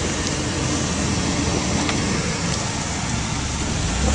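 Car engine running, heard from inside the car, under a steady hiss. The low engine hum gets louder near the end.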